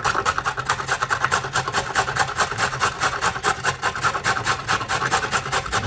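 A carrot being shredded on the coarse side of a stainless-steel box grater: a quick, even run of rasping strokes as the carrot is pushed back and forth over the metal cutting holes.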